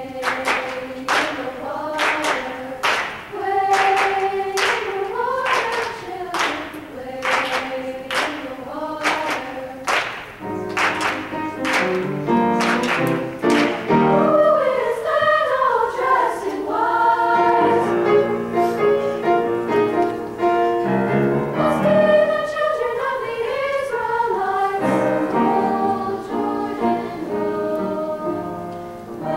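High-school treble choir singing in several parts, with sharp rhythmic accents about twice a second through the first half, then held and sliding chords.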